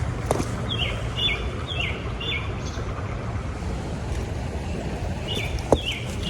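A songbird calling: two runs of short, high notes that each slide downward, about two a second, over a steady low background rumble. A sharp tap sounds near the end.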